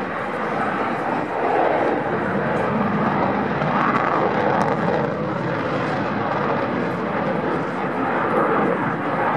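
Belgian Air Component F-16AM Fighting Falcon jet engine noise during a display, a steady, unbroken roar.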